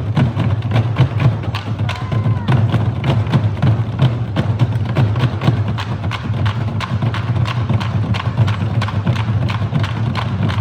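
Korean nanta drum ensemble playing a fast, even rhythm of sharp drumstick strikes over a steady deep low sound.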